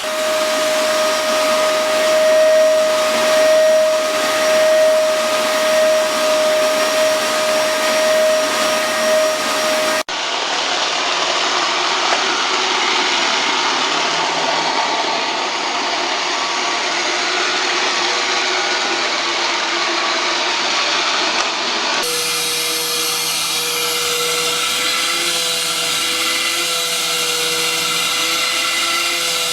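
Vacuum cleaners running steadily with a whine. The pitch and character change abruptly at about ten seconds and again at about twenty-two seconds, as one clip gives way to the next.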